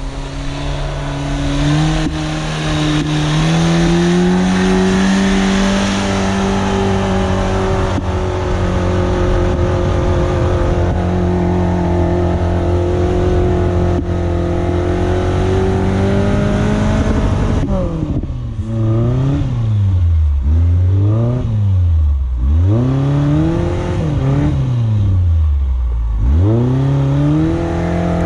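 A Suzuki SJ410's small four-cylinder engine held at high revs under load, with a rushing noise over it. About two-thirds of the way through, the rushing noise drops away and the engine is revved down and up again several times in quick swings before it holds steady again.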